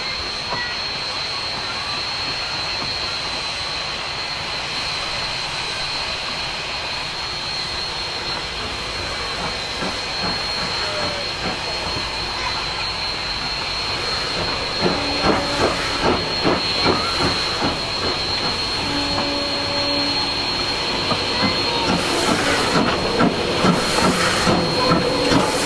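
Narrow-gauge steam locomotive D&RGW 491, a K-37 Mikado, approaching under steam: a steady hiss of steam, then from about halfway through a rhythmic exhaust chuff about twice a second that grows louder as it draws near.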